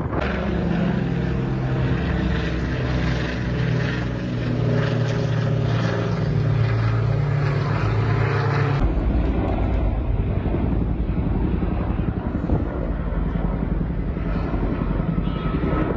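Aircraft engine running with a steady, droning tone. About nine seconds in it cuts abruptly to a deeper rumbling noise with a fainter drone underneath.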